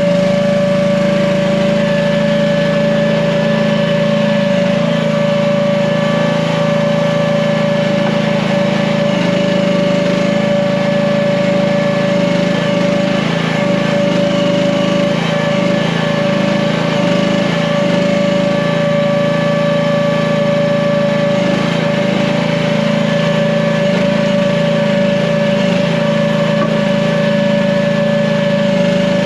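Gas engine of an AGT H15 mini excavator running steadily at a constant speed, with a steady whine above the engine note.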